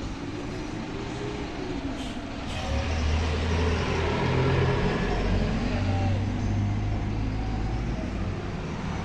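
Low engine rumble of a passing road vehicle, growing louder from about three seconds in.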